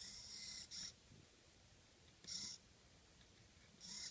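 Hitec HS-311 hobby servo whirring in short bursts as it steps to a new angle with each push-button press: a longer burst at the start, a brief one just after, another about two seconds in, and a short one near the end.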